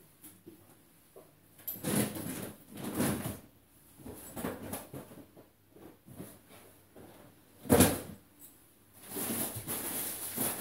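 Groceries being lifted out of plastic delivery crates: scattered knocks and rustles of items, bags and crates being handled, with one sharp, loud knock about three-quarters of the way through.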